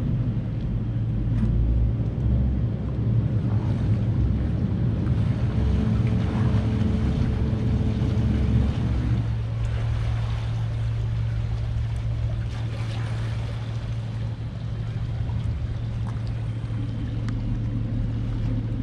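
Boat engines running: a heavy, rough rumble for about the first nine seconds, then a steadier low hum.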